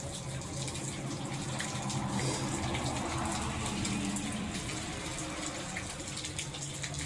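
Steady rain with water running and splashing: a continuous hiss with small scattered drip ticks.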